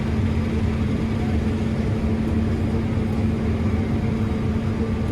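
Combine harvester running, heard from inside the cab as a steady low drone with a constant hum.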